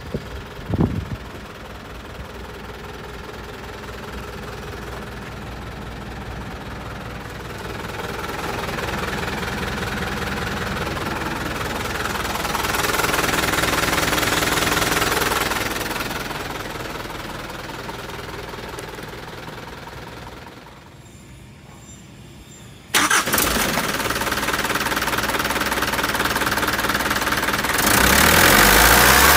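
Mitsubishi 4D32 four-cylinder diesel engine running steadily at idle, its level rising and falling. A sudden sharp knock comes about 23 seconds in, and the engine is loudest near the end.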